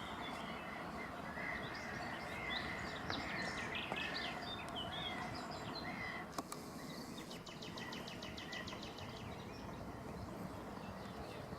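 Many birds calling in short chirps over a steady background hiss. About seven seconds in, a rapid run of ticks, about ten a second, lasts a second and a half.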